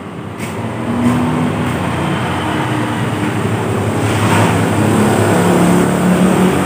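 A motor vehicle's engine running close by: a steady hum with rushing noise that swells about a second in and then holds.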